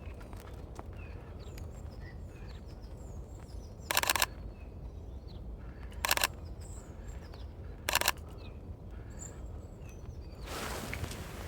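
Sony A6400 camera shutter firing three short bursts of rapid clicks, about 4, 6 and 8 seconds in, over faint bird chirps. A rustling starts near the end.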